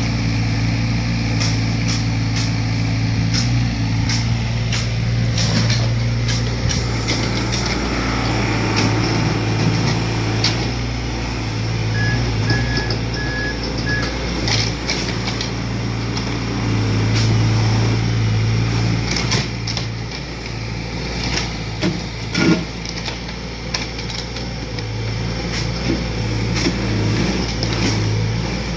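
Heavy diesel earthmoving machine running steadily, with repeated knocks and clanks throughout and one louder knock about two-thirds of the way in. Four short high beeps sound about twelve seconds in.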